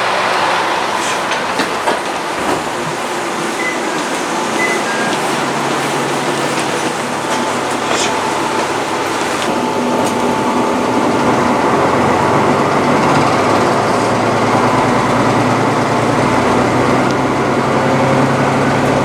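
Train running along the rails: a steady rumble and rattle with scattered clicks, growing a little louder about halfway through.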